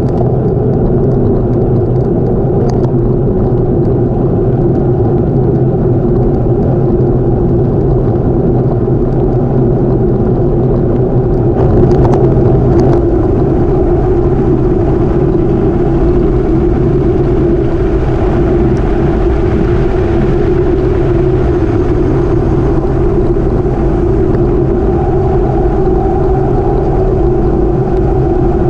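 Steady rush of wind on a bike-mounted camera's microphone, with tyre rumble from a gravel bike rolling fast over a wet gravel road. About twelve seconds in it briefly gets louder with a few sharp clicks.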